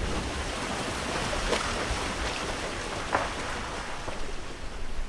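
Ocean waves washing in a steady surf.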